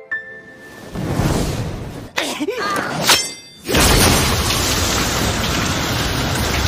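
Anime sound effects of a sudden dash through a snowy forest: a swelling whoosh, a sharp crack a little after two seconds in, then a loud, steady rush of noise as a cloud of snow blasts through the trees from about four seconds in.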